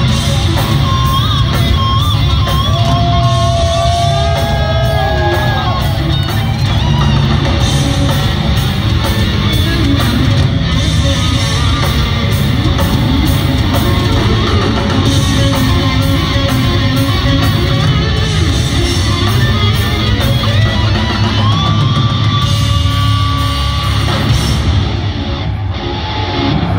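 Heavy metal band playing live, loud: distorted electric guitars over bass and drums, with a held, bending guitar line over the top in places.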